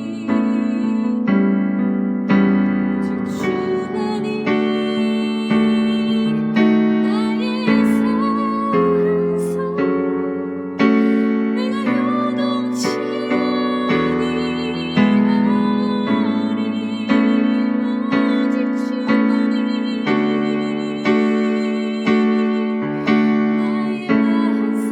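Piano playing slow worship music, with a chord struck about once a second and left to fade before the next.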